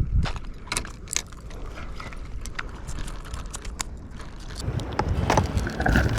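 Irregular knocks and clicks from a freshly landed mahi-mahi and the fishing tackle being handled on the breakwater, with a low wind rumble on the microphone.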